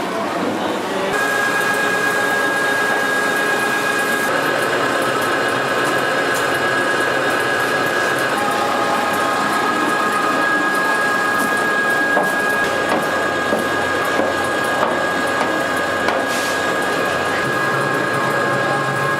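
A machine running with a steady high whine made of several fixed tones, starting about a second in, with light clicks and clatter over it.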